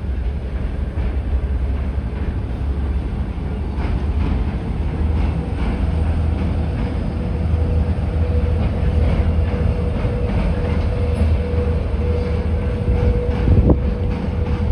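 Freight train rolling past on the line: a steady low rumble with wheel clicks over the rail joints. A steady whine joins about halfway through.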